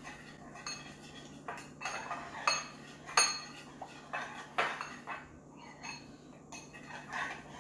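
Metal fork stirring a thick herb-and-olive-oil rub in a glass bowl, scraping and clinking against the glass in irregular strokes, the loudest clink about three seconds in.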